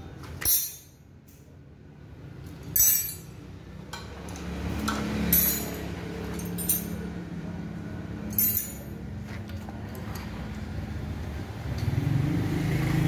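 Metal hand tools clinking sharply five times, a second or two apart, as spanners are handled and set down. A low steady rumble runs underneath and grows louder near the end.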